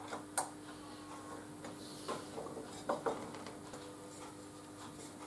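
Faint scattered metallic clicks and knocks as a carbide-tipped circular saw blade is handled and seated on the mount of a saw-blade sharpening machine, the sharpest about half a second in and others around two and three seconds, over a faint steady hum.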